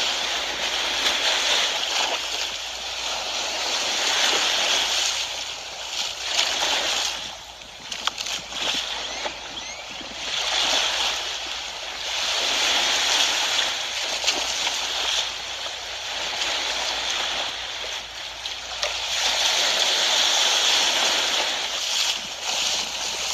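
Sea waves washing and splashing close by, a steady surf hiss that swells and fades every few seconds.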